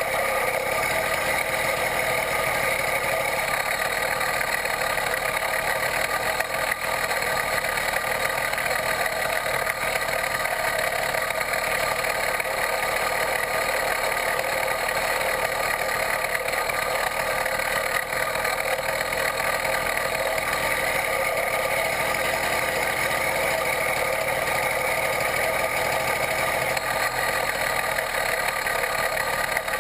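Small 66/80cc Chinese two-stroke bicycle-kit engine running steadily as the bike cruises at an even speed.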